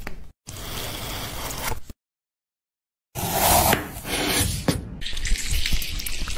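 Wet food-preparation sounds: squishing and scraping with some liquid, in short edited snippets. The sound cuts to silence for about a second near the middle.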